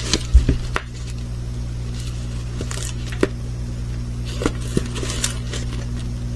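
Scattered handling noises as a diamond painting kit is shown: light clicks, taps and brief rustles, with one low thump near the start, over a steady low hum.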